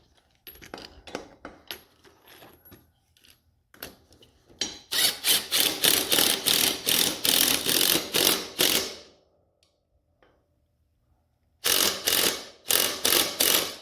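Impact driver with a 3/4-inch socket tightening a mower's front wheel axle nut: light clicking at first, then loud rapid rattling in repeated bursts for about four seconds, a pause of a couple of seconds, and more bursts near the end.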